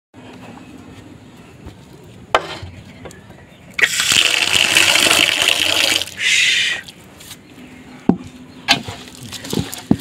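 Water poured into a metal bowl of cracked grain duck feed, a steady splashing pour for about two seconds starting about four seconds in, then a shorter second pour. Near the end come a few knocks and rustles as a hand starts mixing the wet feed in the bowl.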